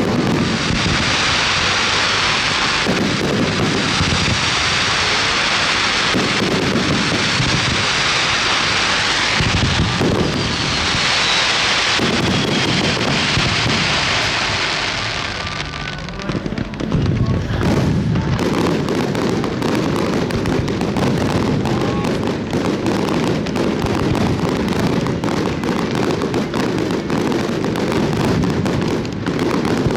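A dense fireworks barrage: swelling waves of crackling, hissing shells through the first half, then a rapid, continuous run of sharp bangs and cracks from about halfway on.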